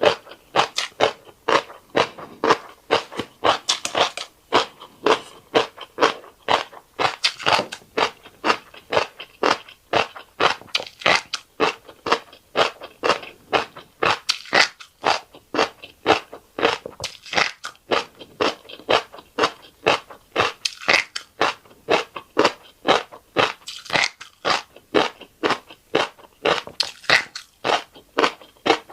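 Close-miked chewing of fish roe and rice: steady, sharp chews at about two to three a second, without a break.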